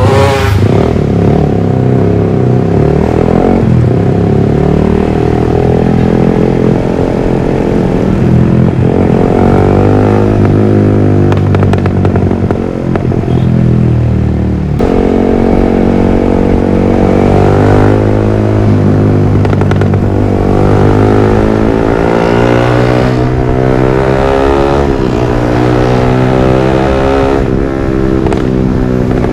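Yamaha R15 V3's 155 cc single-cylinder engine running through a Villan MP1 aftermarket exhaust, revved up and down over and over, its pitch rising and falling in repeated sweeps.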